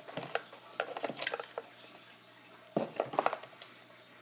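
Small hard objects clicking and clattering as the contents of a speaker box are handled by hand, in two short flurries: one at the start and one near three seconds in.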